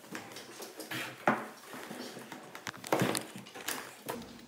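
A person crawling up a carpeted wooden staircase: scuffing and shuffling with several knocks against the steps, the sharpest about a second in and again about three seconds in.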